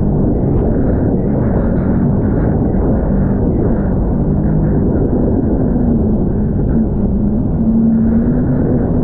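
Personal watercraft engine running at speed, its drone wavering in pitch as the craft bounces over the chop, with water spray against the hull and wind buffeting the microphone.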